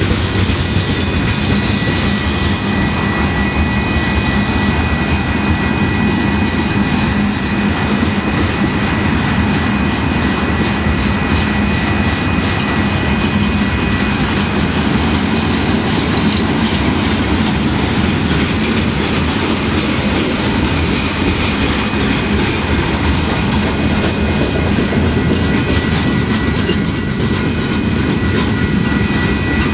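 Freight cars of a long Union Pacific manifest train rolling past close by: a steady, loud rumble and clickety-clack of steel wheels on the rails, with a thin, steady high-pitched squeal running through it.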